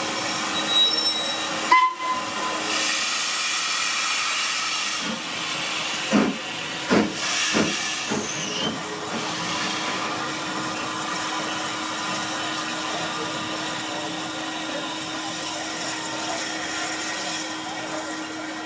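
Steam locomotive, the Ivatt class 2MT, hissing steam: a thin squeal of wheels or brakes fades out in the first two seconds, then a steady hiss of escaping steam runs on, with a few heavier puffs about six to eight seconds in and a low steady hum beneath.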